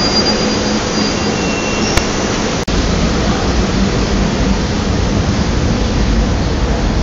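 Steady loud rushing noise of a SEPTA Silverliner electric commuter train running at the platform, with a sharp click about two seconds in. There is a brief break shortly after, followed by a heavier low rumble.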